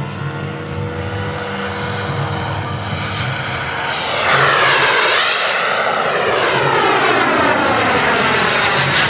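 Radio-controlled model warplane flying past, its engine getting louder about four seconds in, with a sweeping, phasing sound as it passes close by.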